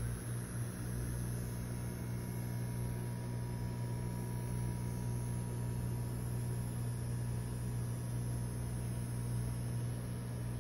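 Household ozone generator running with a steady electric hum, its air pump driving ozone through a tube into water.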